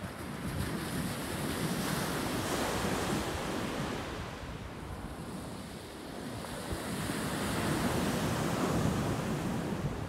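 Sea surf washing onto a pebbly beach, swelling and easing twice, with wind rumbling on the microphone.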